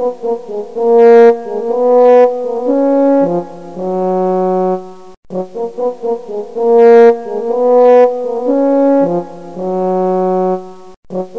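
Background music: a short brass melody of held notes that loops, repeating about every six seconds.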